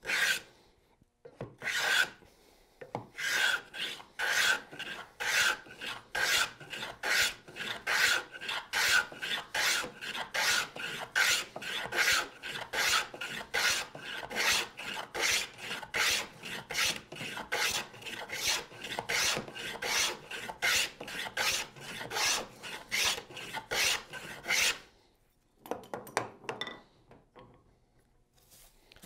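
Wooden moving fillister plane taking shavings along a board edge to cut a rabbet, rasping strokes about two a second. The planing stops a few seconds before the end, leaving only a few faint handling sounds.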